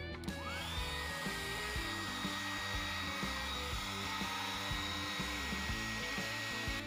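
Handheld Ayumi hair dryer switched on about a third of a second in: its motor whine rises quickly and then holds steady with a blowing hiss, as it heats vinyl wrap film on a car wheel. Background music plays underneath.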